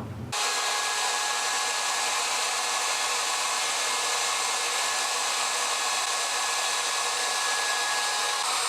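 Electric wood router with a small bit running at full speed, a steady high whine that cuts in abruptly just after the start.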